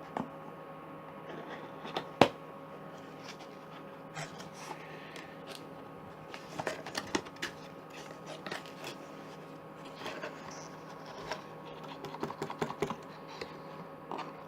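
Scattered clicks, crinkles and scrapes of a cardboard box and its packaging being opened by hand, with one sharp snap about two seconds in and busier handling near the middle and toward the end.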